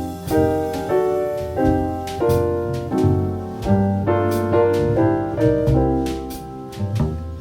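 Background music: gentle piano-led instrumental over a bass line.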